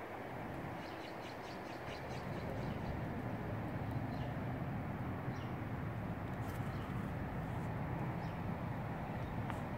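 Birds chirping now and then over a steady low rumble that grows louder about three seconds in.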